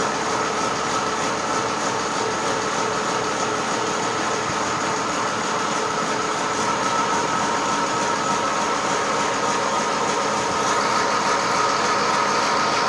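Restored Hitachi excavator's diesel engine running steadily, heard close to the open engine bay, a little louder near the end.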